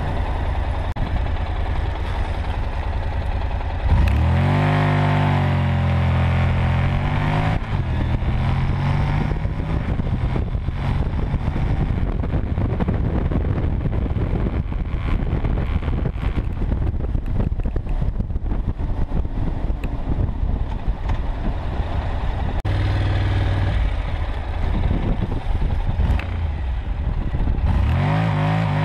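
Honda NC700X's 670 cc parallel-twin engine running steadily, then opening up hard about four seconds in, its pitch climbing under full acceleration for a few seconds. After that the bike runs on at speed with a steady rush of wind noise over the engine, and near the end it begins accelerating again.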